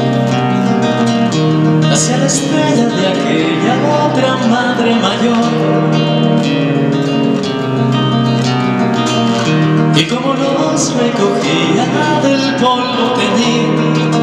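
Acoustic guitar accompanying male voices singing a slow song.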